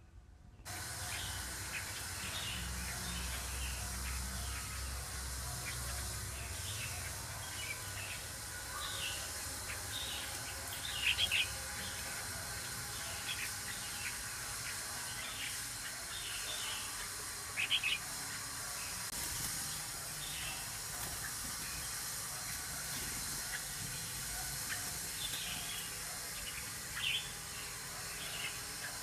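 A flock of caged red-whiskered bulbuls chirping and calling in short, scattered phrases over a steady hiss, with a few louder calls near the middle and toward the end.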